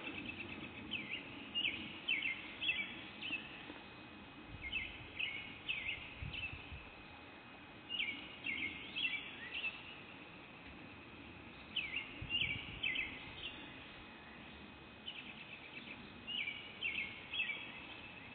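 A songbird singing: short phrases of several quick, high, sweeping notes, repeated every three or four seconds, over a faint outdoor rumble.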